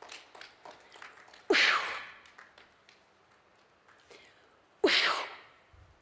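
A woman's forceful cough-like blows of breath, twice about three seconds apart, each a sharp hissing huff that drops in pitch and dies away within half a second.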